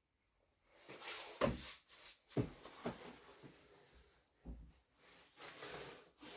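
Quiet handling sounds of applying a finish: from about a second in, several dull knocks and scuffs, then soft rubbing near the end, as a sponge is dipped into a small metal tin and wiped along the cradle's wooden rail.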